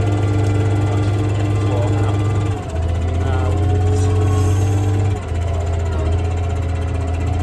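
Fendt 936 tractor's diesel engine pulling a 10-furrow plough in work, a steady low drone whose note shifts twice, about two and a half and five seconds in.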